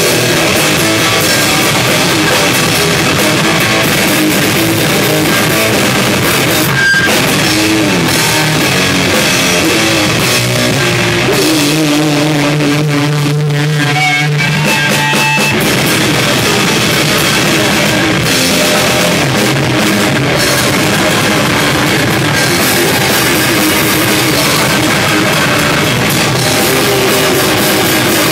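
A loud rock band playing live: drum kit pounding with cymbals and a distorted electric guitar. About halfway through, the drumming thins out for a few seconds while a low sustained note rings, then the full band comes back in.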